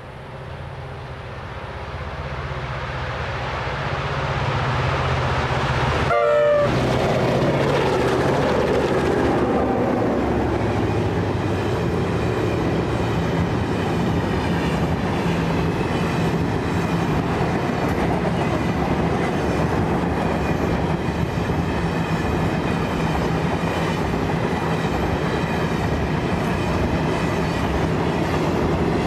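A 422 class diesel-electric locomotive with an EMD two-stroke engine draws near under load, growing louder, and passes about six seconds in with its pitch falling. After it, a long rake of loaded oil tank wagons rolls past with steady wheel clatter.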